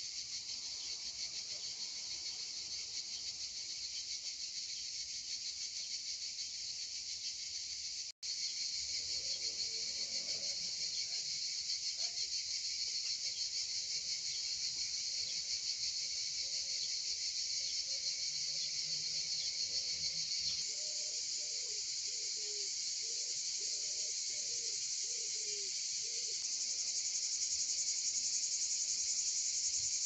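Dense chorus of crickets, a steady high-pitched trilling. It breaks off for an instant about eight seconds in, then carries on a little louder and grows louder again near the end.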